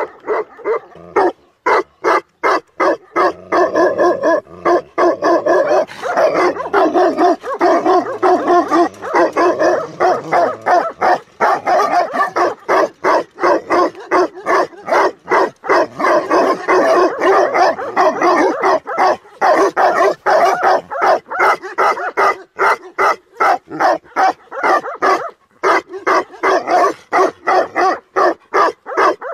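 Tibetan mastiffs barking together without pause, a steady stream of barks at about two to three a second.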